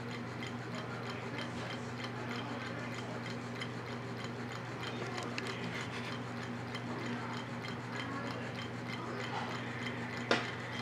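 Low-temperature-differential Stirling engine running on dry ice and hot water, its mechanism clicking steadily about three times a second, around 195–200 RPM. A steady low hum runs underneath, and one sharper click comes near the end.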